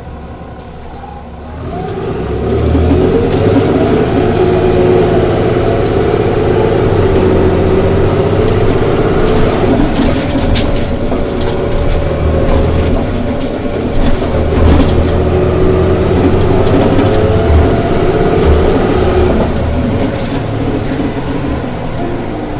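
Cummins Westport ISL G natural-gas engine of a 2011 Orion VII CNG transit bus, running quietly at first, then pulling hard under power about two seconds in and staying loud and steady before easing off near the end.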